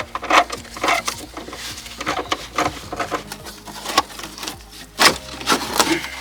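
Irregular clicks, knocks and rubbing of car interior trim being handled and pried off by hand, the sharpest knocks about a second in and about five seconds in.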